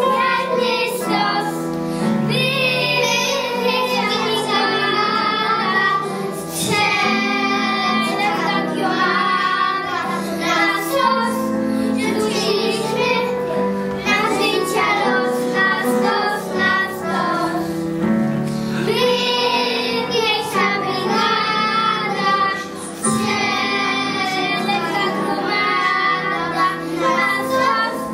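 Young children singing a song with musical accompaniment.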